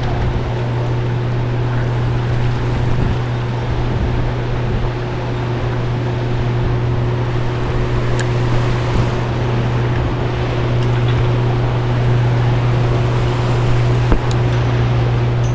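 A steady low motor hum runs without change, over an even wash of water and wind noise.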